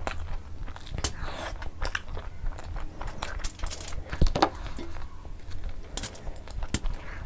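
Close-miked eating: wet chewing and mouth smacks on pizza, then a big bite into a soft-bun cheeseburger about four seconds in, followed by chewing with a full mouth.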